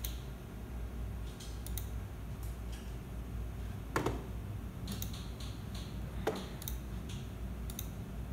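Scattered single clicks of a computer mouse, with two louder, fuller clicks about four and six seconds in, over a low steady hum.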